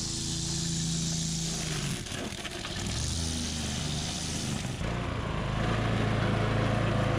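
Push string-trimmer mower's Briggs & Stratton 875 series engine running as it is pushed through tall grass, its note shifting with the load. A high hiss sits over the engine for the first few seconds, and about five seconds in the engine gets louder and its pitch changes.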